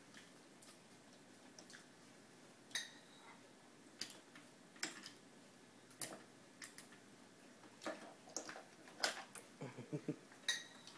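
Faint, irregular plastic clicks and taps of a high chair's seatbelt buckle and strap being fumbled by a toddler's hands.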